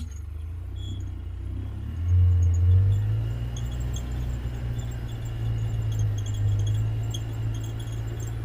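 Steady low rumble of a vehicle, growing louder about two seconds in and then holding.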